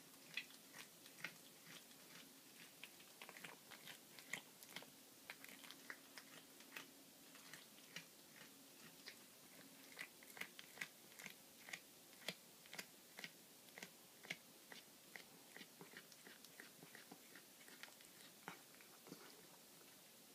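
Domestic cat chewing a baby rabbit carcass: faint, irregular crunches and clicks of teeth on bone and flesh, several a second with short pauses.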